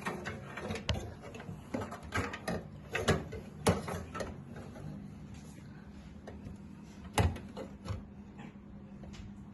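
Hard disk being slid into the metal drive bay of a PC case: scattered clicks and knocks of the drive against the bay, with two sharper knocks, one partway through and one later.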